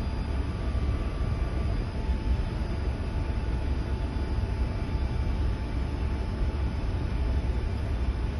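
Steady low rumble of running engine-room machinery, with a faint steady whine above it.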